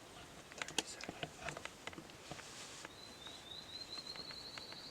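A run of light clicks and rustles, then about three seconds in a small songbird's rapid trill on one high pitch, rising slightly.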